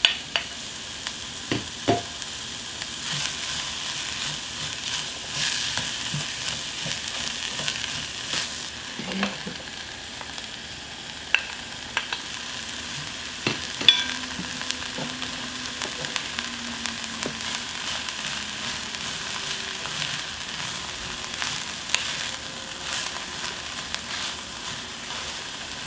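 Chopped onion, green onion and king oyster mushroom sizzling steadily in oil in a hot earthenware pot (ttukbaegi) as they are sautéed. A wooden spoon scrapes and stirs them, with a few sharp clicks as it knocks against the plate and pot.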